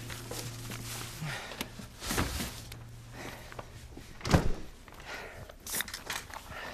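Rustling and footsteps, with a refrigerator door thudding shut about four seconds in, which is the loudest sound, followed by a few light clicks and knocks.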